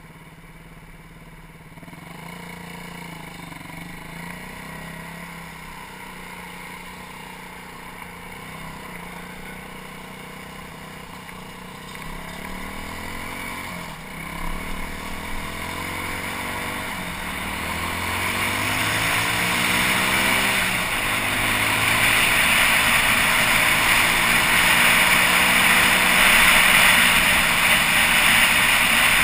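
BaltMotors BM Motard 200 motorcycle's single-cylinder engine under way, its pitch rising and falling as it pulls through the gears. Wind rushing over the microphone grows louder from about halfway as speed builds.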